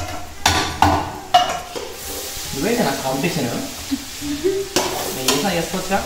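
A wooden spatula scraping and knocking against a frying pan a few times, then cooked rice being stirred in a large aluminium pot over the stove with a steady frying sizzle.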